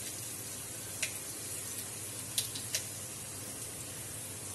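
Tempering seeds and dried red chillies sizzling in hot oil in an aluminium pot, a steady faint fizz broken by three sharp crackles of seeds spluttering: one about a second in and two close together past the middle.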